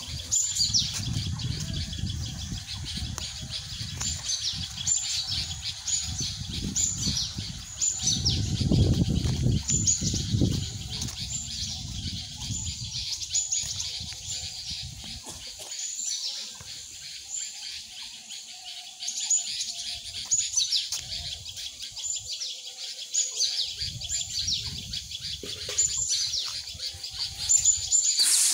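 Small birds chirping, many short repeated calls throughout. Now and then a low rumble comes and goes under them.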